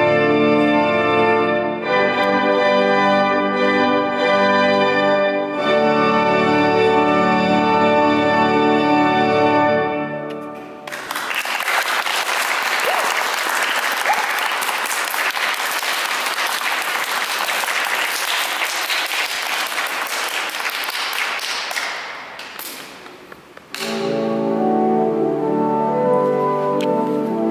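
Church pipe organ playing held chords that change twice and then end, followed by an audience applauding for about twelve seconds. The applause fades away and the organ starts again near the end.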